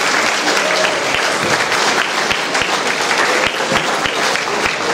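Loud applause from a large concert audience, many hands clapping at once.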